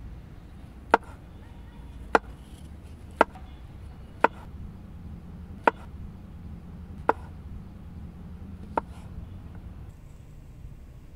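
A large cleaver-style chef's knife slicing mushrooms on a wooden cutting board: seven sharp knocks of the blade meeting the board, about one a second, spaced slightly wider toward the end.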